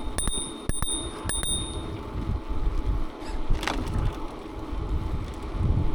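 Electric bike being ridden: its bell dings four or five times in the first second and a half, over a steady low rumble from the ride.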